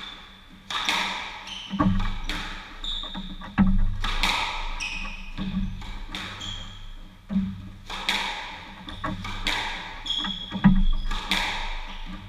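Squash rally: the ball cracks off rackets and the court walls about every second, each strike ringing on in the court's echo, with short squeaks of shoes on the wooden floor between shots.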